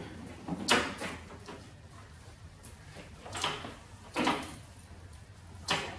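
Folding handle of a Worx Nitro 40V cordless self-propelled lawn mower being raised: several plastic-and-metal knocks and clicks, the loudest about a second in, with a last click near the end as the handle lock catches.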